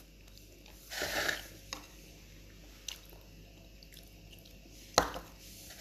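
Quiet eating sounds over bulalo soup: a short slurp of broth about a second in, a few small clicks, and a sharp knock about five seconds in as the ceramic bowl is set down on the stone table.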